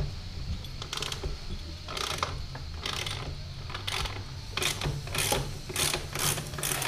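Wrench working a motorcycle's rear axle nut: a series of short metallic clicks and rasps, coming faster toward the end, over a low steady hum.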